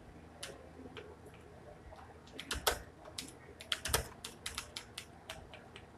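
Computer keyboard keys clicking as someone types: a few scattered keystrokes at first, then a quicker run of them from about two and a half seconds in.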